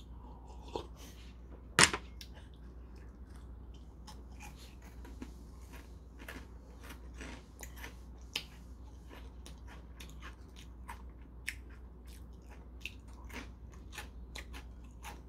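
A person chewing crunchy shrimp crackers at close range: a steady run of small, crisp crunches. One louder sharp crunch or knock stands out about two seconds in.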